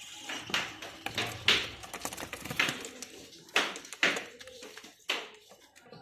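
Budgerigars pecking and husking seed in a plastic feeding tray: about seven short, sharp taps at irregular intervals.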